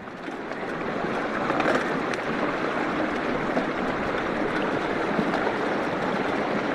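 Pump-fed water rushing steadily through a Goldhog Piglet sluice box, fading in over the first second.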